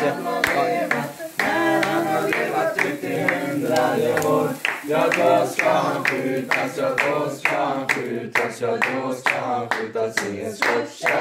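A small group of people singing a birthday song together and clapping along in a steady beat of about two to three claps a second.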